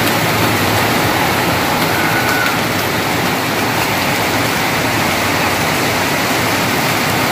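Heavy rain pouring steadily onto a concrete yard: a dense, even hiss of rain on the ground.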